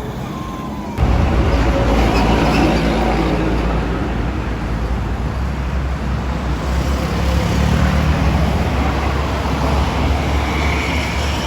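Road traffic passing at a toll gate, with a loud low rumble that starts abruptly about a second in and holds steady.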